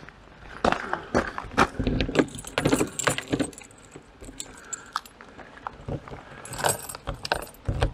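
A bunch of keys jangling, with irregular clicks and knocks, busiest about two to three and a half seconds in and again near seven seconds.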